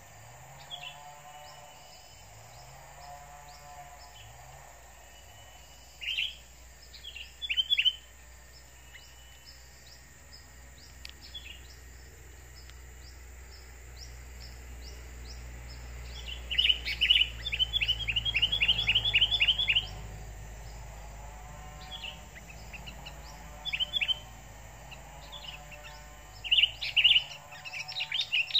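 Sooty-headed bulbuls calling in sharp chirps, with a fast run of about a dozen loud chirps in the middle and shorter bursts before and near the end. This is the excited calling of a decoy bulbul facing a wild rival.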